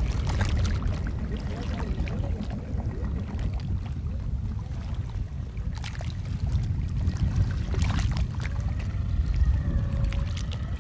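Steady low rumble of open-air noise over water, with scattered short splashes and knocks from the paddles and poles of a small wooden canoe being worked through the water.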